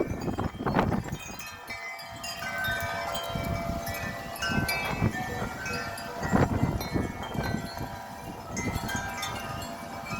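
Several wind chimes ringing continuously in strong, gusty wind, their overlapping tones struck over and over, with low wind rumble on the microphone swelling at the start and about six seconds in.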